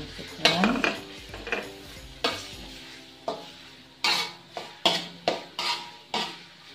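Metal spatula scraping and knocking against a wok, about ten irregular strokes, while onion and garlic fry in oil with a sizzle underneath.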